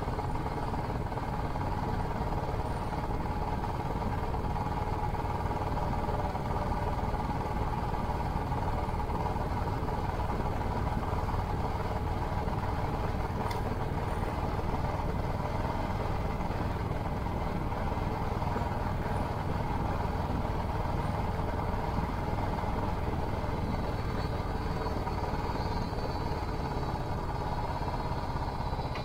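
Royal Enfield Classic 500's single-cylinder engine running through a Hitchcock's aftermarket exhaust, the motorcycle cruising at a steady speed with an even, unbroken exhaust note.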